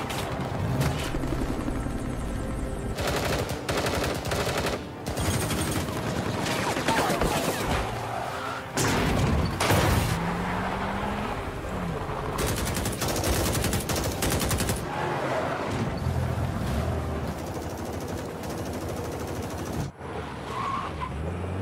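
Repeated bursts of rapid automatic gunfire over the running engines of vehicles in a film car-chase sound mix. The bursts come several times, each lasting a second or two.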